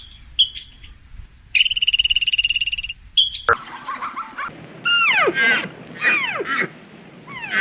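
Animal calls: short high chirps and a rapid pulsing trill held for over a second, then, after an abrupt change, three bursts of calls that sweep steeply down in pitch.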